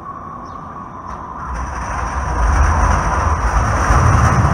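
Breda light rail train approaching and passing on street track: the rumble of its wheels and running gear grows steadily louder from about a second and a half in.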